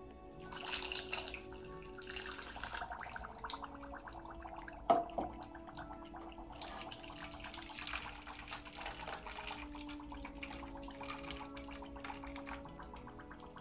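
Hot water pouring in a steady stream from an electric kettle into a glass measuring jug, with one sharp knock about five seconds in.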